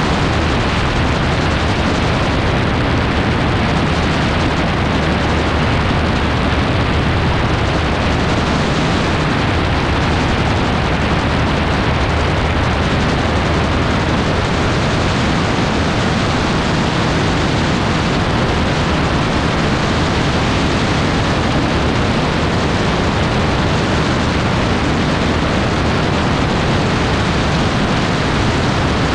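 Gyroplane in flight: a steady, loud rush of wind buffeting the microphone over the drone of the engine and rotor, with no change throughout.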